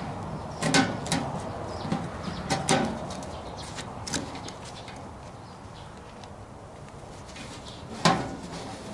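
A handful of separate knocks and clunks, as of objects being handled and set down, the loudest a sharp knock near the end.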